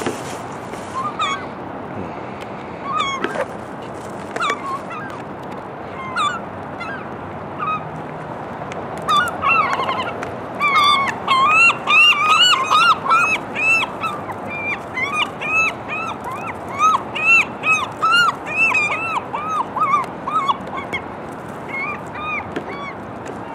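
Gulls calling over food: a few single calls at first, then from about nine seconds in a flock calling many times in quick succession, with short, arched, yelping calls.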